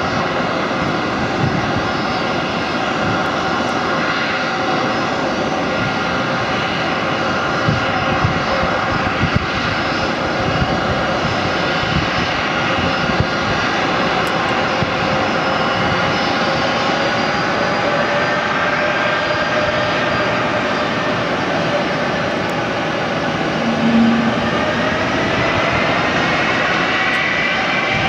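Jet airliner engines at taxi idle on the ramp: a steady roar with a layered whine of several tones. The whine shifts and rises in pitch over the last several seconds. A brief low tone sounds about three-quarters of the way through.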